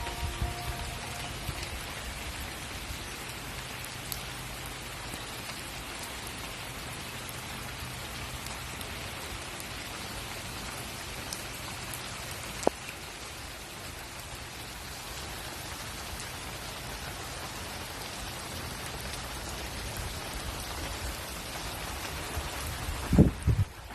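Steady rain falling, an even hiss of drops on surfaces, with one sharp tap about halfway through and a few loud thumps just before the end.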